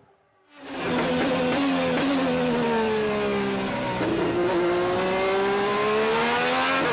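Onboard sound of an open-wheel race car engine at high revs. Its note falls steadily as the car slows for a corner, then climbs again as it accelerates out, with a sudden step in pitch near the end. It fades in about half a second in.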